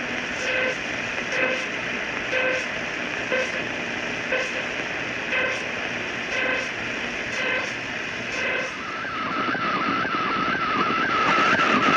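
Shortwave radio receiver tuned between 4 and 5 MHz playing hiss and static with an unidentified signal: short tone blips with a faint click repeat about once a second. After about nine seconds this gives way to a warbling tone over rougher noise.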